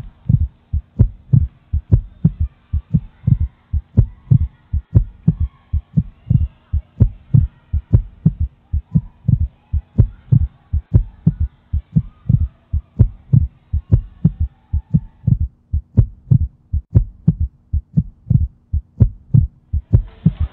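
Heartbeat sound effect: a steady, repeating lub-dub of loud low thumps.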